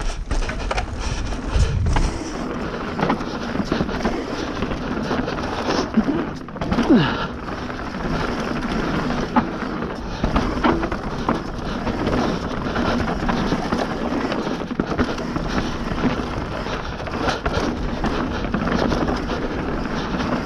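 Bird Zero AM MK3 hardtail mountain bike descending a dry, dusty trail: steady tyre noise on dirt with frequent knocks and rattles as the bike hits bumps.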